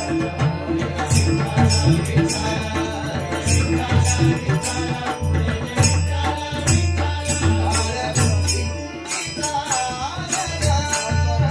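Devotional bhajan music driven by taal hand cymbals clashing in a steady, fast beat over deep drum strokes, with a melody line running through it.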